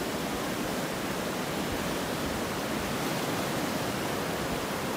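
Fast-flowing mountain stream rushing over rocks: a steady, even rush of white water close by.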